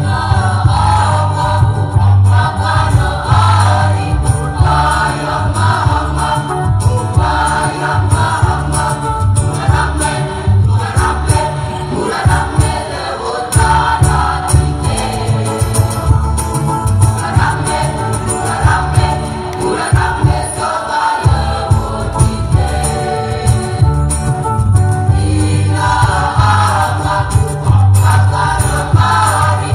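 High-school choir singing together, with a strong low bass part running underneath.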